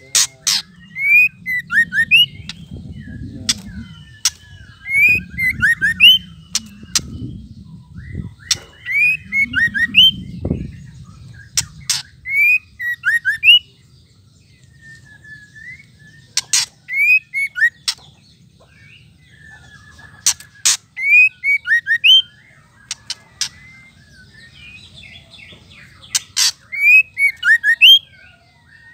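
White-rumped shama giving its harsh 'ketrekan' rattle call in bouts every few seconds. Each bout is a string of sharp, loud clicks mixed with short falling whistled notes.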